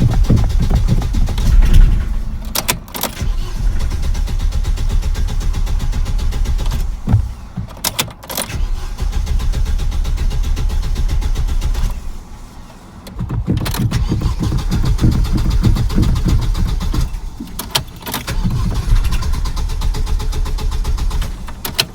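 Car engine being cranked over and over on its starter, with repeated attempts broken by short pauses and clicks, the engine failing to start and stay running.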